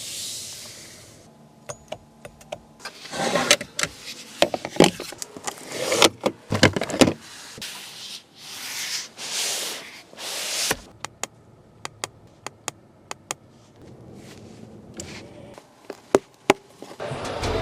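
Range Rover Sport's fittings being worked: a string of sharp clicks and knocks from switches and latches, with several whirring swells of electric motors or moving panels, each lasting a second or two.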